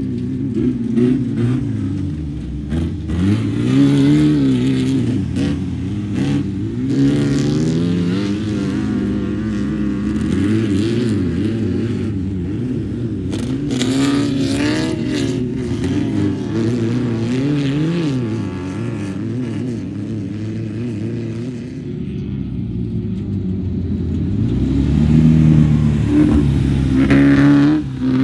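Air-cooled flat-four engine of a Class 11 stock VW Beetle desert race car, revving up and down over and over as it is driven hard, with scattered clattering. It is loudest near the end.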